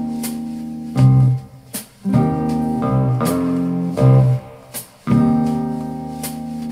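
Klipsch R-15PM powered bookshelf speakers playing an instrumental rock passage, recorded in the room. Chords are struck roughly once a second, with short dips in level between some of them.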